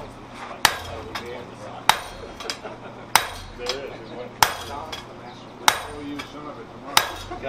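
Sledgehammer striking a handled top tool set on a red-hot steel swage block: six heavy, even blows about one and a quarter seconds apart, driving a depression into the hot steel.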